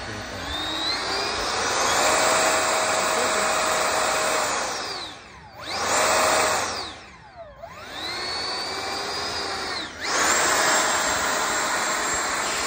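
A 64 mm electric ducted fan (XFly 2840 motor, 3200 kV, on 4S) in a foam-board RC jet, run up on the ground with a rushing whine that sounds like a leaf blower. It spools up to full throttle, winds down about five seconds in, gives one short burst, runs for a while at part throttle, then spools back up to full throttle about ten seconds in.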